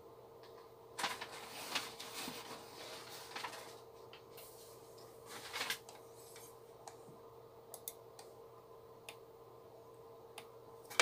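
Computer mouse clicks, a few single clicks spread through the second half, with stretches of rustling handling noise in the first half, over a steady faint hum.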